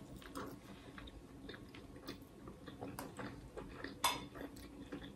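Close-up eating sounds: soft chewing with small wet mouth clicks, and light taps of a utensil on a plate or container. One sharper click about four seconds in is the loudest sound.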